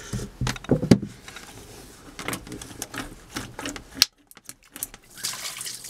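Irregular clicks and knocks of metal hose clamps and rubber hoses being worked by hand as the coolant hoses are pulled off the water pump of a Volvo Penta 5.0 GXI V8 marine engine. The loudest knock comes about a second in, and a sharp click just after four seconds is followed by a brief dead gap.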